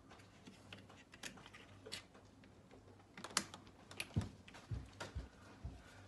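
Scattered light clicks and taps of a screwdriver working the terminal screws of a plastic junction box, with a few dull knocks in the second half.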